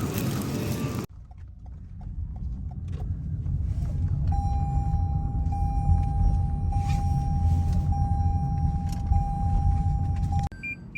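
A loud rushing noise that cuts off abruptly about a second in, then a steady low appliance hum with a faint held tone. The hum stops near the end and is followed by four short, high beeps.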